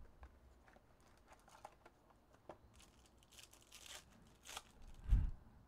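Plastic wrapping on a trading-card box rustling and tearing as it is unwrapped by hand, with scattered small clicks and a crinkly stretch about three and a half seconds in. A dull thump about five seconds in.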